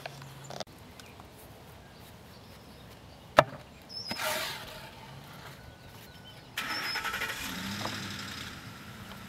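A single sharp knock, a brief rush of noise, then an engine starting abruptly about two-thirds of the way through and slowly settling down.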